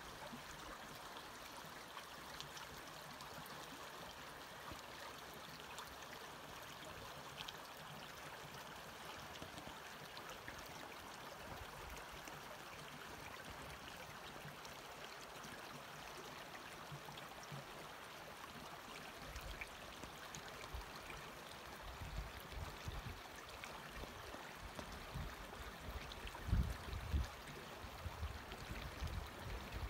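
A creek running between snow banks, a steady soft rush of flowing water. In the last ten seconds, irregular low rumbles come and go on the microphone, growing stronger near the end.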